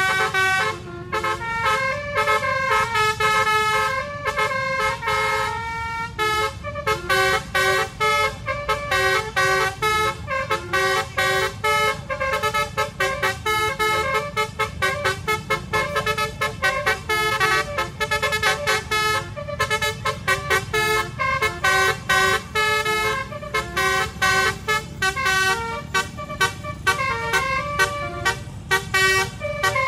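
Bus basuri (telolet) musical horn playing a fast melody of short tooting notes, over a steady low road rumble.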